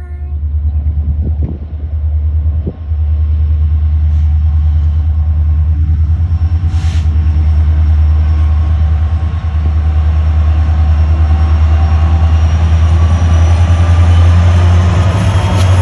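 Union Pacific diesel locomotive approaching and passing close by: a loud, steady low rumble of its engine and the rolling train, growing a little louder as the locomotive goes by near the end.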